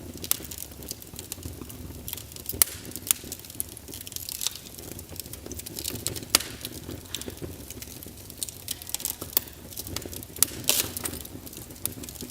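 Fire burning in a fireplace, crackling with irregular sharp pops, a few much louder than the rest, over a low steady rumble of the flames.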